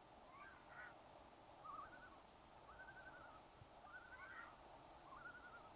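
Faint bird calls: about half a dozen short, wavering calls spaced a second or so apart, over a low steady hiss.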